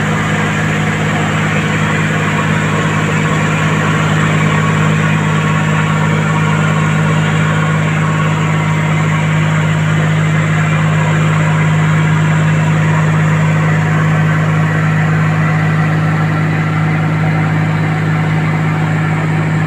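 Heavy-equipment diesel engine running at a steady speed, with a constant low hum.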